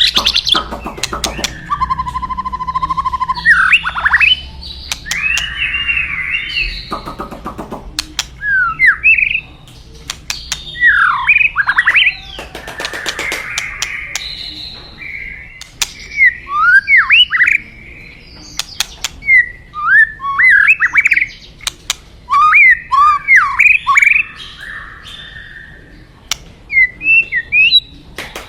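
White-rumped shama singing: a varied run of short, quick whistled notes sweeping up and down, mixed with sharp clicking calls, in phrases separated by brief pauses.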